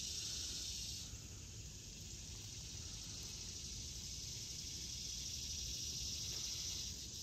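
Faint, steady high-pitched hiss in the background, with no distinct strokes or knocks standing out.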